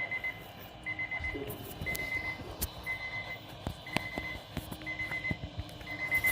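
Weather radio receiver's alert alarm: a high electronic beep of four quick pulses, repeating about once a second, signalling an incoming weather alert. A few sharp clicks sound alongside.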